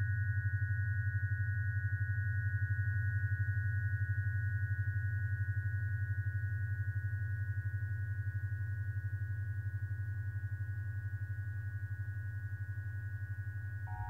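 Synthesized sci-fi particle beam sound effect: a steady deep electric hum that pulses quickly, with a thin cluster of steady high tones above it.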